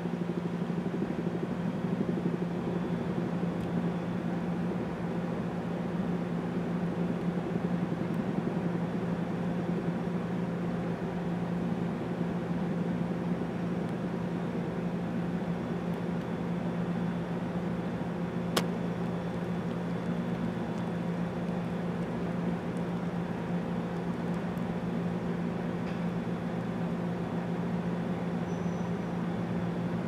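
Federal Signal STH-10A siren sounding the daily noon whistle, holding a steady low tone at full speed. A single sharp click comes about two-thirds of the way through.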